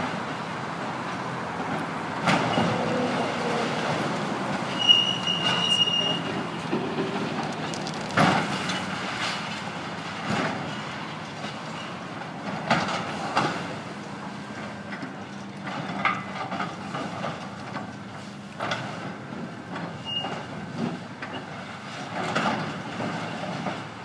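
Caterpillar excavator with a claw bucket demolishing a building: its engine runs steadily under repeated crashes and clanks of breaking debris, several seconds apart, with a brief high screech about five seconds in.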